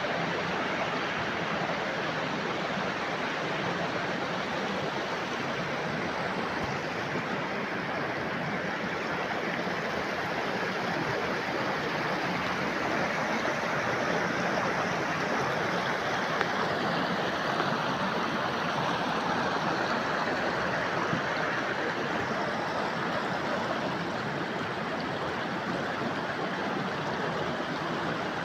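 Steady rushing of flowing water, an even wash of noise without pauses.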